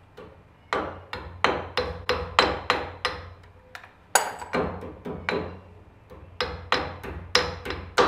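Hammer tapping the bent legs of a cotter pin into place against the castle nut on a trailer wheel spindle: a run of light metal-on-metal taps, about three a second, each leaving a short ring, with two brief pauses.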